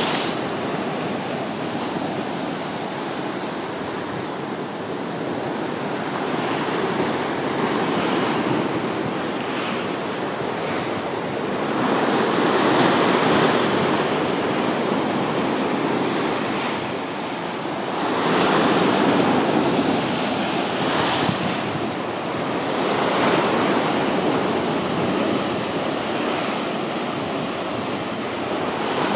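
Sea waves breaking against rocks and churning into foam, the surf swelling and ebbing every few seconds, with the loudest surges about twelve and eighteen seconds in.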